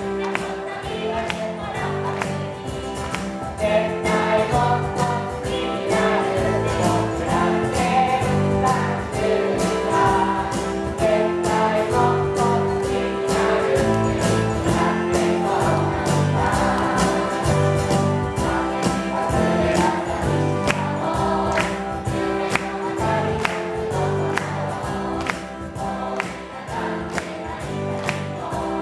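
A group of voices singing a Japanese children's camp song in unison over instrumental accompaniment with a steady beat.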